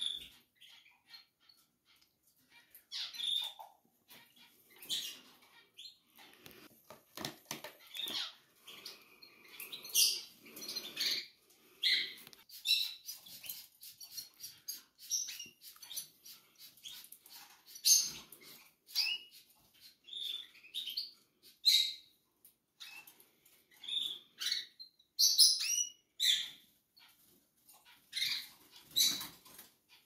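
Canary nestlings peeping: short, high cheeps in irregular bursts throughout, mixed with rustling and small knocks as the chicks and their nest cup are handled.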